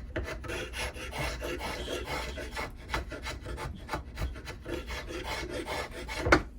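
Repeated rough scraping strokes of a hand tool on wood: the cant hook's wooden handle being worked down to fit its metal socket.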